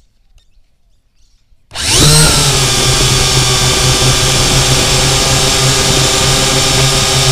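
Syma X8C quadcopter's motors and propellers spinning up suddenly about two seconds in, rising quickly in pitch and then holding a loud, steady whine as it lifts off, heard through the camera mounted on the drone.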